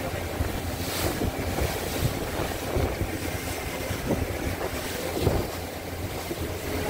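Motorboat under way, its engine running steadily, with water splashing against the hull and wind buffeting the microphone.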